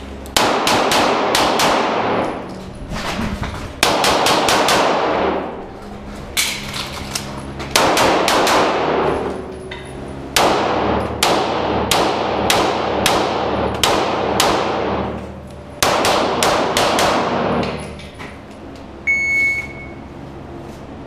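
Pistol shots fired in quick strings of several shots, with brief pauses between strings, each shot ringing with a long echo off the enclosed range's hard walls.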